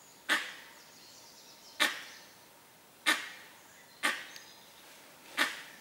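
Monkey alarm calls: single sharp barks, five in a row about every second and a half, set off by a tiger moving in the open.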